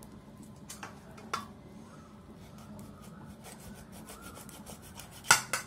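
Fingers rubbing and scraping the brittle skin and scales of a dried fish in a steel bowl, with a few faint clicks, then a short loud crunch near the end as the dried tail is cut off.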